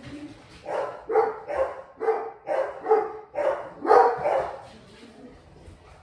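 A dog barking repeatedly, in a quick run of about two barks a second, stopping about three-quarters of the way through.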